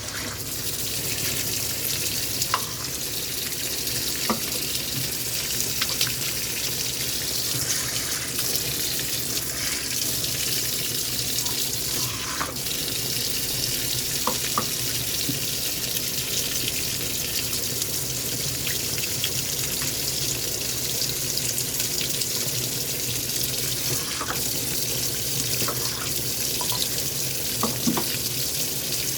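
Water running steadily into a washing machine as it fills, with a low hum and a few faint clicks.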